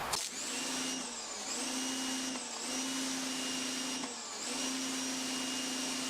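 Homdox electric pressure washer's motor and pump running with a steady hum and high whine while spraying a straight stream through the red 0-degree tip; the hum dips briefly three times.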